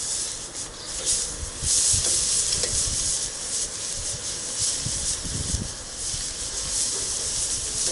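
Honey-marinated chicken strips sizzling on a hot grill over glowing coals: a steady high hiss as the sticky marinade hits the hot bars.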